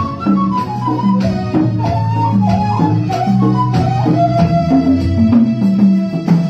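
Music from a church choir performance with instrumental accompaniment: a stepwise melody line over sustained low notes, marked by light regular percussion.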